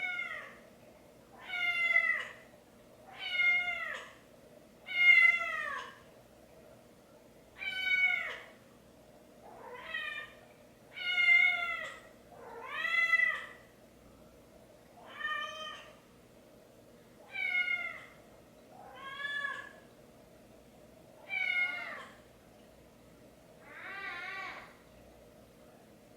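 An animal calling over and over: about a dozen meow-like calls, each under a second long and falling in pitch, spaced a second or two apart.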